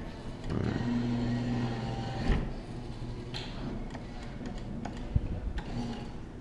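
Claw machine running as it is played: a steady motor hum from the moving gantry, a knock about two seconds in, and a few clicks later on.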